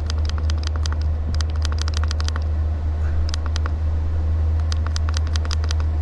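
Diesel heater running with a steady low hum from its blower, over quick runs of clicks from the controller's buttons being pressed again and again to raise the temperature setting.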